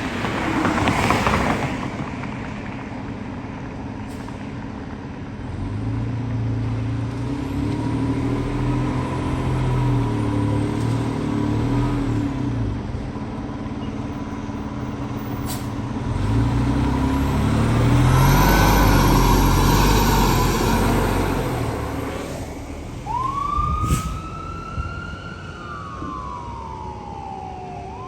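A fire engine's diesel engine revving and shifting as it pulls out and drives off, louder for a few seconds in the middle. Near the end an electronic siren starts up, wailing up and down.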